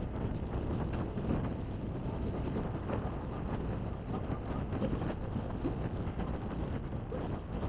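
Steady rumble of a moving bus, engine and road noise heard from inside the cabin.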